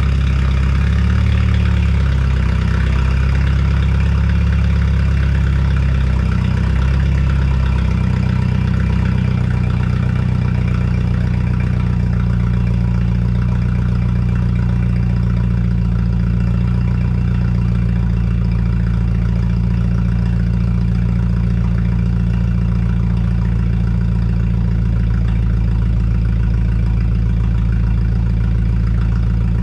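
BMW 428i Gran Coupe's N20 2.0-litre turbocharged four-cylinder idling through an exhaust fitted with a DPW exhaust cutout, heard from behind the tailpipes. The idle wavers a little for the first several seconds, then settles into a steady drone.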